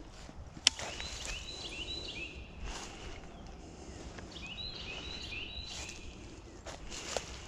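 A songbird singing two runs of high, quick stepped notes, the second about halfway through, over quiet outdoor background. A single sharp click or snap sounds about two-thirds of a second in.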